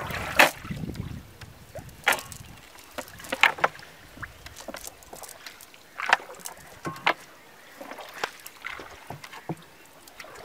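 A wet, mud-laden cast net handled in the bottom of a wooden boat, making scattered knocks and clatters against the planks, about ten in all, the loudest about half a second in.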